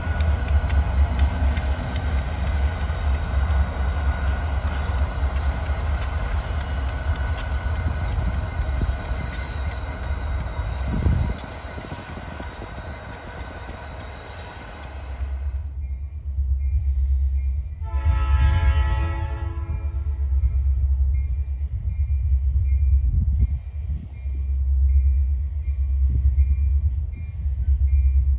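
Union Pacific diesel-electric locomotives pulling slowly past with their engines running and a steady whine over the rumble; the sound fades and stops about halfway through. A locomotive's low rumble then builds, and a diesel locomotive horn gives one short friendly toot of about two seconds.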